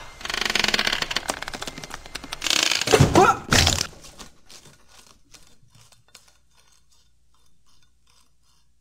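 Scraping and crunching noise, then a louder crash with two heavy thuds about three seconds in, followed by sparse crackles and clicks that die away.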